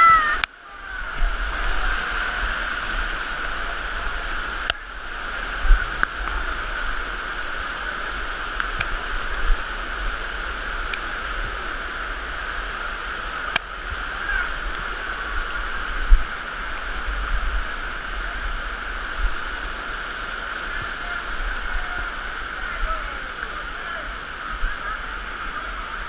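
Cascading waterfall water rushing steadily over rock steps, heard close up from within the falls, with a few sharp knocks and deep rumbling of water hitting the microphone; faint voices in the background.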